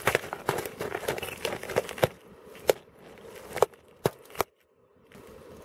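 Irregular sharp knocks and clicks, with a crackling patter in the first two seconds, then a few separate knocks.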